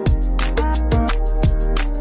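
Worship band music with a steady kick-drum beat, a deep held bass note and sustained chords above it.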